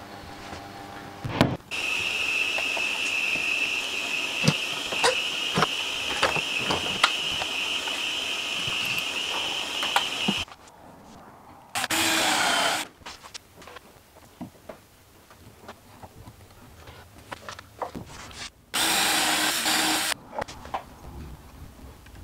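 A cordless drill runs in two short bursts of about a second each, some seven seconds apart, working at the wooden gunwale of a skin-on-frame boat. Before them, a steady whirring machine with a high whine and scattered clicks runs for about eight seconds.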